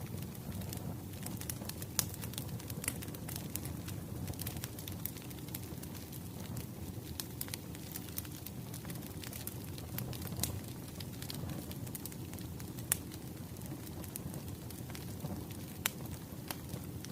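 Wood fire crackling: a steady low noise of burning with irregular sharp pops and crackles scattered throughout.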